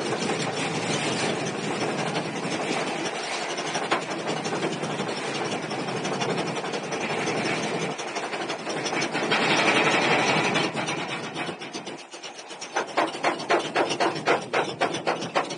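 Roller coaster car climbing a vertical lift hill: the lift gives a steady loud rasping clatter, which swells briefly past the middle. Near the end it gives way to a quick run of regular clicks, about four a second, as the car nears the top.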